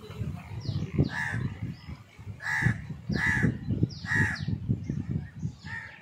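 Crows cawing about five times, short harsh calls at uneven gaps, with thin high chirps of small birds between them and a low rumbling noise underneath.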